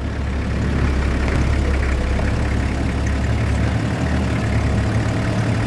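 Safari game-drive vehicle's engine idling: a steady low rumble.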